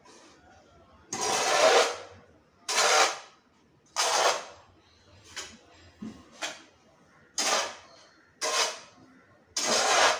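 Short-handled hoe scraping and dragging a garden soil mix across a tiled floor in repeated strokes, about one every second and a half, as the soil is being mixed.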